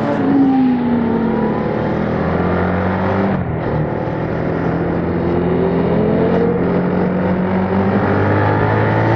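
Yamaha MT-07's parallel-twin engine through its stock exhaust, heard on board while riding: the engine note falls over the first second or so, breaks briefly about three and a half seconds in, then climbs again as the bike accelerates.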